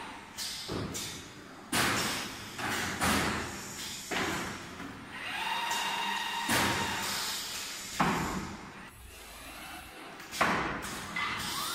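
Automatic tricot cutting and welding machine working: a series of irregular clunks and slams, several of them followed by a short rush of hiss.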